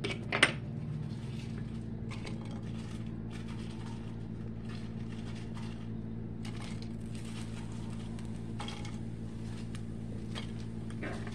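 Crisp fried chicken pieces being moved around in a skillet with a utensil: scattered clicks, scrapes and light crunching, with one sharp clunk about half a second in, over a steady low hum.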